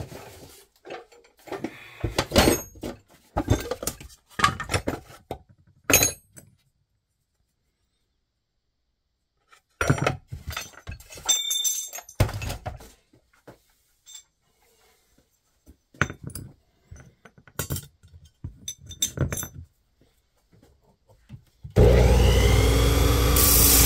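Metal bolts and threaded rods clattering and clinking as hands rummage through a wooden box of hardware, in several bursts with pauses between. Near the end a power tool starts up and runs loudly and steadily.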